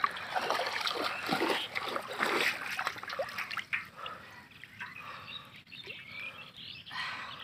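Shallow water splashing and trickling as a hand gropes for trapped fish inside a bamboo polo fish trap. It is louder and more agitated for the first few seconds, then softer.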